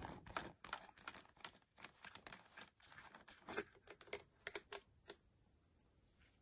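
Faint, irregular light plastic clicks and ticks as a trigger spray head is twisted on and off the neck of a plastic bottle.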